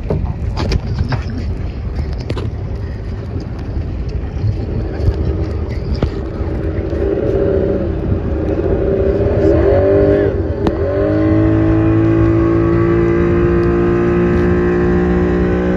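Outboard motor of a small tow boat running under load, with rushing wind and water noise. About ten seconds in, its pitch dips and climbs again, then holds steady and somewhat louder.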